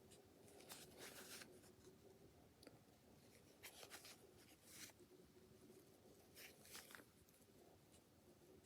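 Near silence: quiet room tone with a faint steady hum and a few soft, brief hissing noises.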